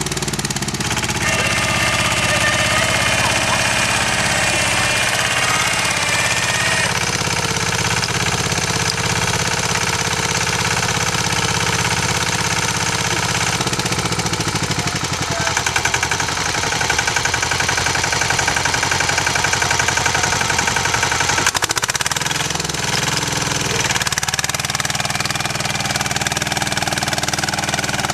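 Yağmur YET-510 walk-behind rotary tiller running steadily as it works through garden soil. The engine gets louder and rougher for several seconds just past the middle, then settles back.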